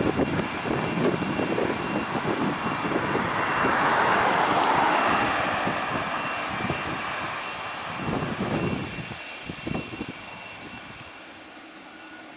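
Jet engines of a Boeing 767-300, its Rolls-Royce RB211 turbofans, running as the airliner rolls past on the ground. The rushing engine noise swells to a peak about four seconds in, then fades away.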